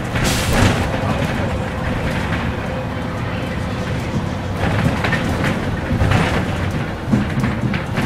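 Inside a moving city bus: a steady rumble of engine and road, with rattles and knocks from the body and several louder bumps, about half a second in and again around five to seven seconds in.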